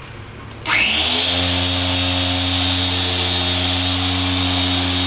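Griot's Garage dual-action polisher switched on about two-thirds of a second in, spinning up quickly and then running at a steady speed with a high whine over its hum, buffing a headlight lens with a foamed wool pad.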